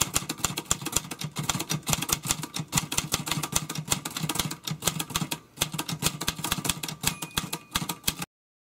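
Typewriter key-clicking sound effect: a fast run of sharp keystroke clicks, several a second, that cuts off abruptly about eight seconds in.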